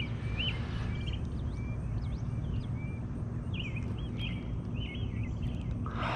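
Small bird chirping over and over in short, wiggly notes, over a steady low outdoor rumble.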